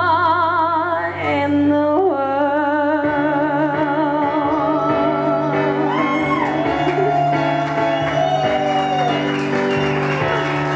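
A woman singing live into a microphone, drawing out long held notes with a wavering vibrato, over a quiet sustained instrumental accompaniment; the melody falls away near the end.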